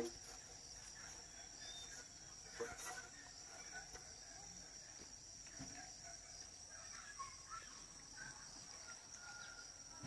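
Steady high-pitched insect drone with faint scattered chirps. A single short knock comes about two and a half seconds in.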